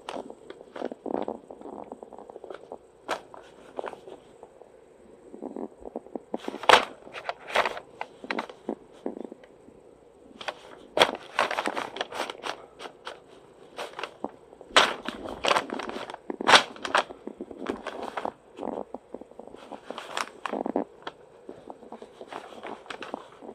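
Newspaper pages crinkling and rustling in irregular bursts as a cat paws and pushes at them, with a few louder crackles about a third of the way in, around the middle and again past two-thirds.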